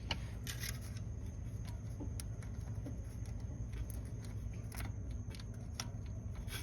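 Faint, scattered metal clicks and scrapes as small parts are fitted by hand onto a newly installed car starter, over a steady low hum.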